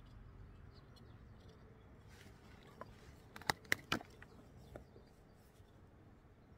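Knife whittling a wooden spoon: a few short, sharp cuts in quick succession about halfway through, with fainter scrapes and clicks around them, over a low steady rumble.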